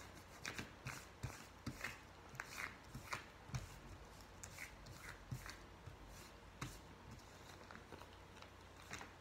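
Sealed plastic bag of paint crinkling and rustling faintly as fingers press and smush the paint around inside it, a string of small irregular crackles.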